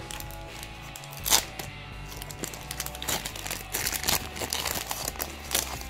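Foil wrapper of a Pokémon booster pack crinkling and tearing as it is handled and ripped open by hand: a string of sharp crackles, the loudest about a second and a half in, over background music.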